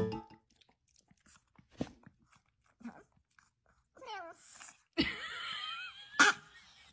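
Chihuahua eating from its bowl, with a few faint chewing crunches, then making squeaky, wheezy whining sounds through an open mouth in the second half.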